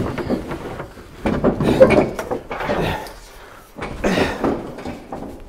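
Tall lumber boards leaning on a rack knocking and scraping against each other as a person pushes out from between them, with irregular wooden knocks and rustling.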